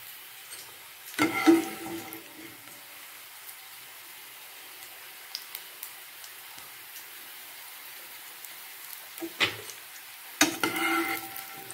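Raw banana slices frying in shallow oil in a nonstick pan, a steady faint sizzle. A metal slotted spoon scrapes and clinks against the pan about a second in, and again twice near the end, as slices are lifted out.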